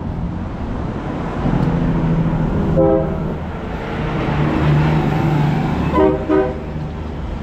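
Road traffic with a steady engine rumble, and a vehicle horn sounding short toots: one about three seconds in and two quick ones about six seconds in.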